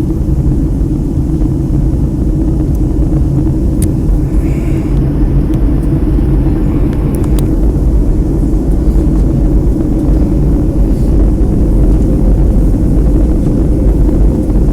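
Boeing 757 cabin noise on approach, heard from a window seat: a steady, loud low rumble of engines and airflow, with a few faint clicks.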